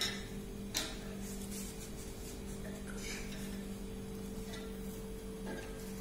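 Origami paper being handled and pressed flat on a hard, glossy tabletop: a few short taps and paper rustles, the clearest in the first second, over a steady low hum.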